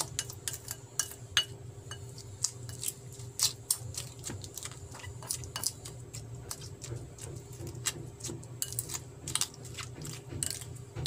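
Wooden spatula stirring and pressing a wet mix of chopped onion, garlic and chili in a glass bowl, making irregular clicks and taps of wood against glass.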